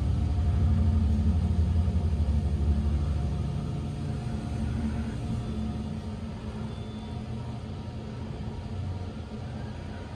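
KONE passenger elevator car travelling upward, heard from inside the car as a low rumble that is loudest for the first few seconds and then eases off.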